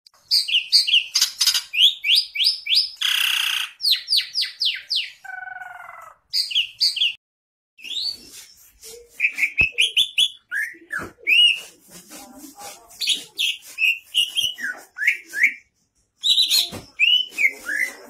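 Green leafbird (cucak ijo) in full song: fast runs of short whistled notes that sweep up and down, broken by brief pauses, with a harsh rasping note about three seconds in and a lower call soon after.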